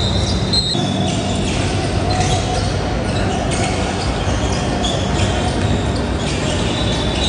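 Basketball game in a gym: sneakers squeaking briefly on the hardwood a few times and a ball bouncing, over the steady din of the hall.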